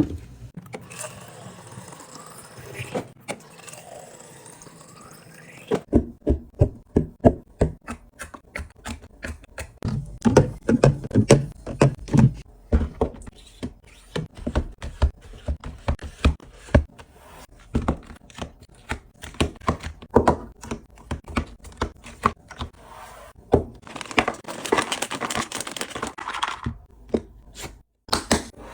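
Items being unpacked and set into a mini fridge: many short knocks and clacks of things being put down and arranged, at an irregular pace. There is a stretch of crinkly rustling at the start and another one near the end.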